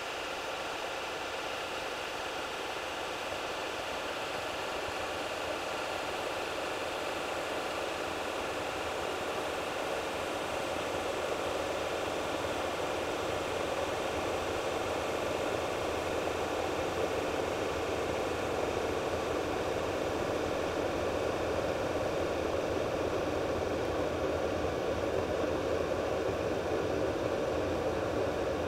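OXO pour-over electric kettle heating water on its base: a steady hiss and rumble of the water coming up toward a boil, growing gradually louder as it heats.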